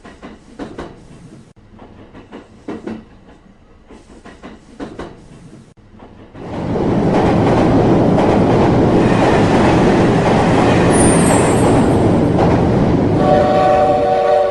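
Train sounds: a few scattered wheel clacks, then a loud rushing of a train passing from about six seconds in. A train horn starts sounding steadily near the end.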